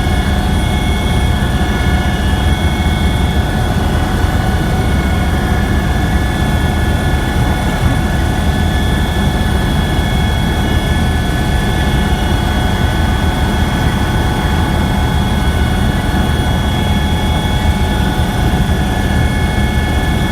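Helicopter running in steady flight, heard from inside the cabin: a constant low rotor drone with steady high turbine whine tones over it.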